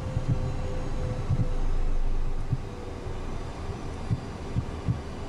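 Cockpit noise of a Cessna Citation twin jet with its engines idling on the runway: a steady hum, with irregular low thumps underneath.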